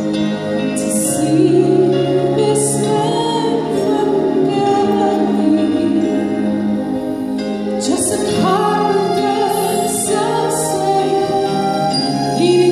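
A woman singing a slow melody in long, wavering notes over sustained instrumental accompaniment.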